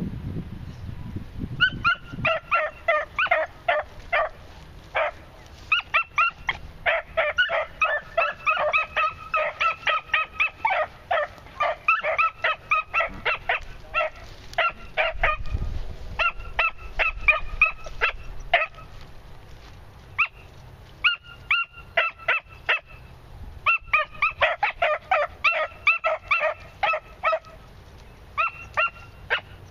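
Beagle pups barking, fast runs of short high yips with brief pauses, typical of young hounds giving tongue on a scent trail.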